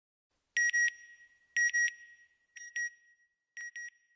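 Electronic double-beep sound effect of an end-logo sting: a high-pitched double beep repeats about once a second, four times, each pair fainter than the last, like an echo.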